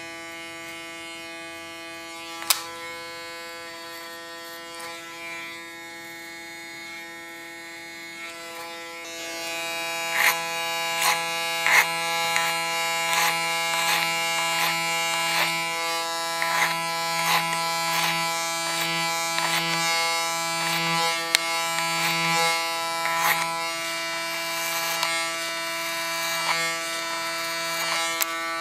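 Electric hair clipper running with a steady buzz, cutting short hair clipper-over-comb. From about nine seconds in it gets louder, with crackling as the blades bite through the hair against the comb.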